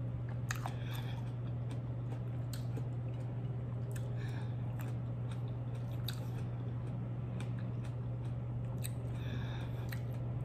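Close-miked chewing of a mouthful of sushi with the mouth closed: soft wet smacks and clicks at irregular moments. A steady low hum runs underneath.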